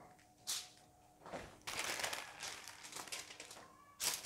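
Wax paper rustling and crinkling in a few short, faint bursts as hands smooth sheets of it flat over aluminium foil.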